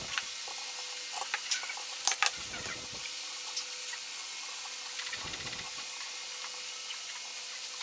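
Sandpaper being handled and wrapped around a wooden sanding drum: scattered paper rustles and small clicks over a steady hiss, with a sharper pair of clicks a little over two seconds in.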